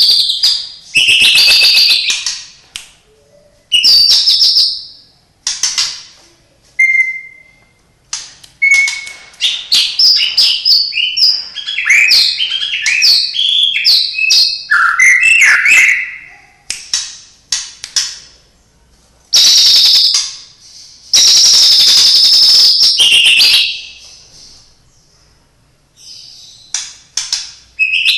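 White-rumped shama (murai batu) singing loudly: long, high whistled phrases separated by short pauses, and in the middle a long run of rapid, varied notes. Its song is filled with imitations of other birds' calls, such as canary, lovebird and sparrow.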